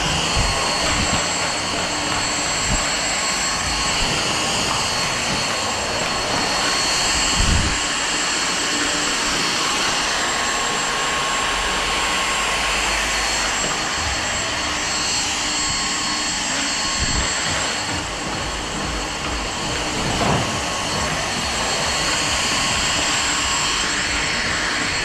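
Stick vacuum cleaner running steadily: a continuous high whine over a rush of air, with a couple of low thuds from the floor head being moved.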